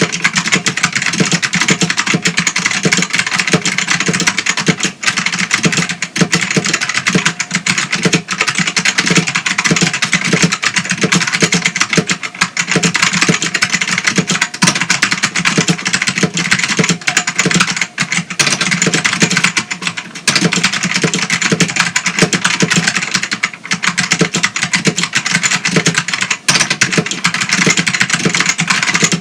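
Fast, continuous typing on a Ducky DK1087-N keyboard with green Alps-type switches (Ducky XM), each keystroke giving a sharp clicky strike.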